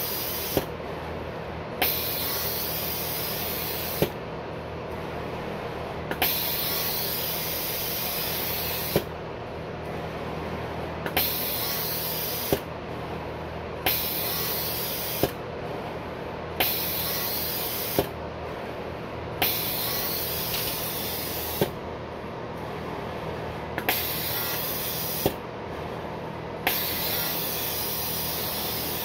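Manncorp 384v pick-and-place machine working through placements at reduced speed: a hiss of air that switches on and off every second or two, with a sharp click at each change, over a steady low machine hum.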